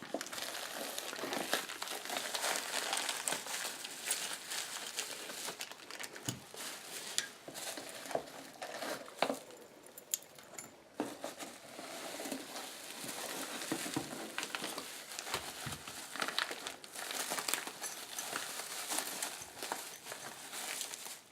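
Bubble wrap and packing material crinkling and rustling as items are unpacked from a box, with scattered light knocks of objects being handled and set down.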